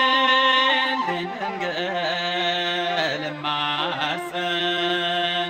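Ethiopian mezmur (hymn) music: a melodic line holds a long note, then moves through ornamented rises and falls and settles into steady held tones over a sustained accompaniment.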